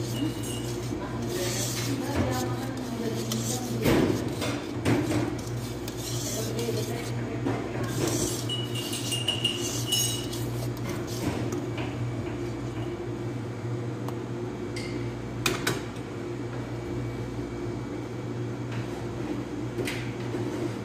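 Wire balloon whisk scraping and clinking against a stainless steel mixing bowl while egg whites are gently folded into cake batter, with a few sharper clinks, about four seconds in and again past the middle. A steady low hum runs underneath.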